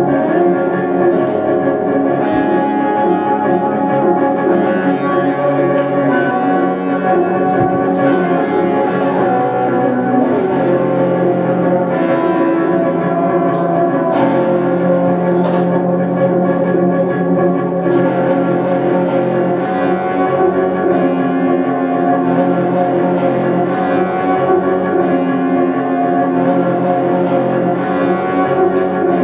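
Live electric guitar played through effects pedals: layered, held notes that overlap and shift every few seconds at a steady level.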